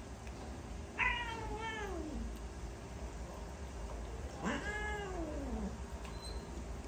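A cat meowing twice, two long meows a few seconds apart, each falling in pitch at the end. It is protesting as it is dosed with liquid vitamin from an oral syringe.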